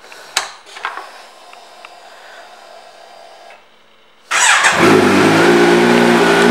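A 2019 Kawasaki Z900 inline-four motorcycle engine with an aftermarket exhaust is started: after a few seconds of faint whirring and clicks with the ignition on, it cranks and fires about four seconds in, then settles into a loud, steady idle.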